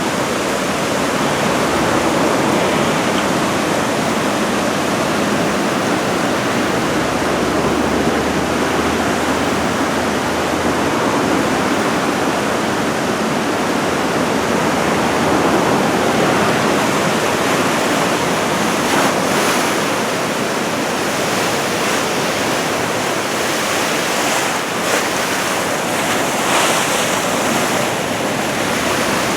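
Ocean surf breaking and washing in steadily, swelled by an approaching typhoon, with wind blowing on the microphone. A few short gusts come near the end.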